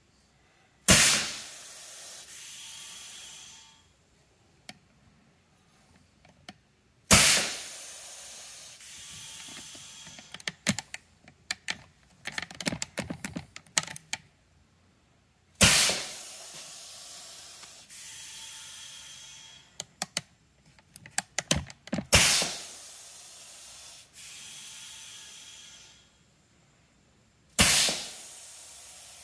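Air-powered dual-cartridge epoxy dispensing gun pushing epoxy out through a static mixer. Five times, a sharp burst of air comes as the trigger is pulled, then a steady hiss for two to three seconds that dies away. Light clicking comes between some of the bursts.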